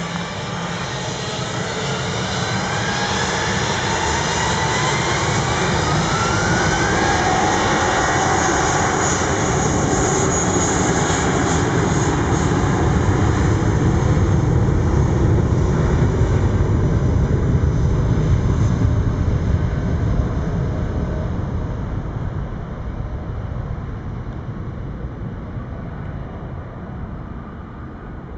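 Airbus A319 twin jet engines at takeoff thrust on the takeoff roll. A whine rises in pitch over the first several seconds as the engines spool up. The jet noise grows loudest as the airliner passes close by, about halfway through, then fades as it runs away down the runway.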